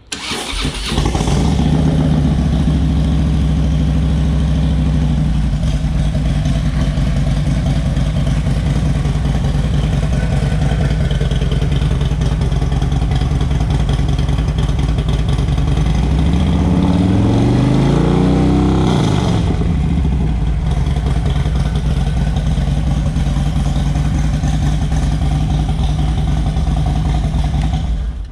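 2016 Harley-Davidson Road Glide Ultra's Twin Cooled Twin Cam 103 V-twin, breathing through a D&D Fat Cat 2-into-1 exhaust, starting up and catching right away. It runs a little fast for the first few seconds, then settles to a steady idle. A little past halfway, one throttle rev rises and falls over about three seconds.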